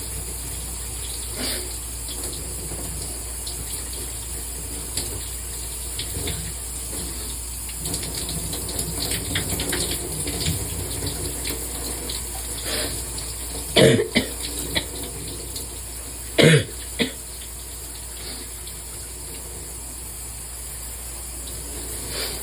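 Shower running steadily, with two loud, sharp sneezes about two and a half seconds apart past the middle, and a smaller one right after the second.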